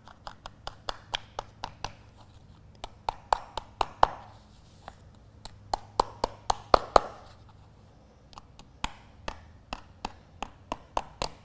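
Many light, sharp metal clicks and taps in irregular runs, a few a second, with a short lull about two thirds of the way through, as the prongs of a twist-lock eyelet are bent over onto its backing washer.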